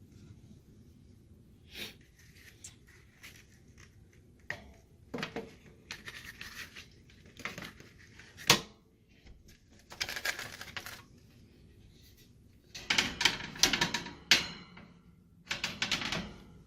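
A 14x20x1 disposable HVAC air filter being handled at the return vent: scattered clicks and knocks with scraping rustles of the filter frame. There is a sharp knock about eight seconds in, and a denser run of clatter and rustling near the end.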